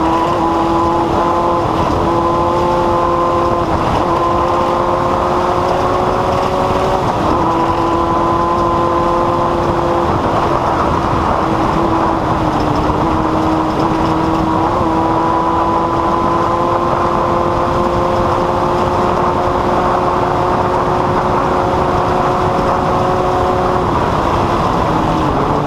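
Off-road race vehicle engine running hard at steady high revs, its note holding one high pitch with small shifts up and down. Under it is a constant rush of wind and rough-ground noise.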